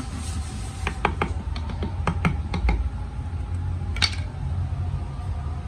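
Sharp metallic taps of a metal rod against a lead-acid battery plate stack as it is knocked into line, about ten irregular taps, most of them in the first three seconds and one louder tap near the end. A steady low rumble runs underneath.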